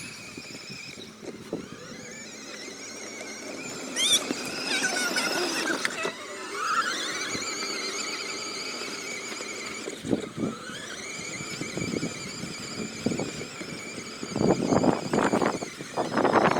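Electric motor of a kids' electric ATV whining at a high pitch, with several tones together. The pitch rises as it speeds up, about 7 seconds in and again about 11 seconds in, and holds steady in between.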